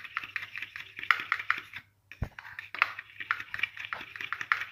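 A spoon clicking rapidly against a bowl as cream is beaten, about five strokes a second. The strokes stop briefly about two seconds in, with one dull thump, then resume.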